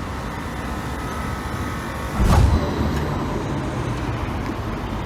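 Steady low rumble of street vehicles, with one louder passing surge about two seconds in.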